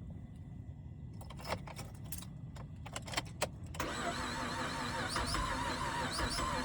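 Rapid, irregular clicking from a 2008 Cadillac CTS's starter as the key is turned, the sign of a bad starter. A steadier noise with a wavering tone takes over about four seconds in.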